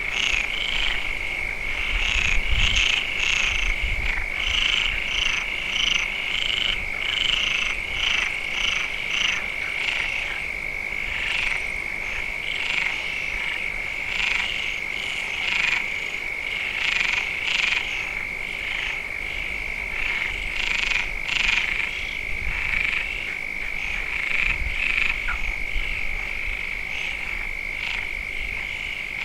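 Frog chorus: a steady high-pitched trill runs underneath while many frogs croak in dense, overlapping calls.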